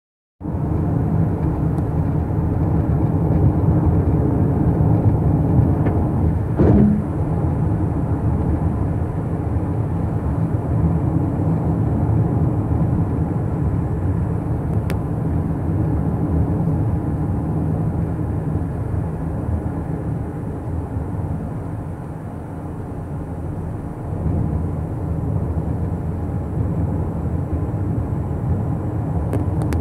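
Steady tyre and engine noise of a car driving at road speed, with a single short bump about seven seconds in.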